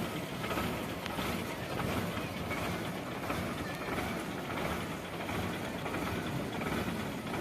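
Concrete pump running steadily during a concrete pour: a continuous mechanical rumble.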